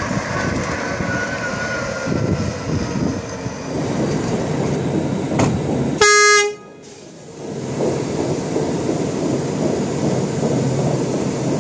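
A single loud horn toot about six seconds in, lasting about half a second and cutting off abruptly, over a steady background rumble.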